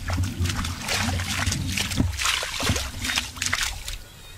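Wet mud squelching and crackling in quick, irregular clicks as a hand digs into a crab burrow.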